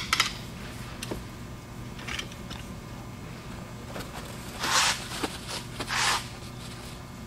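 A few light metallic clicks at the start as the drum is turned and seated in the bare 5HP24 transmission case, then two short rustling swishes, about four and a half and six seconds in, of a cloth shop rag rubbed over the hands.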